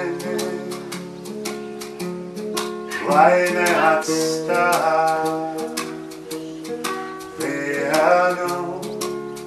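Acoustic guitar picked in a steady rhythm under a light ticking beat, with a man singing two phrases, about three seconds in and again near the end.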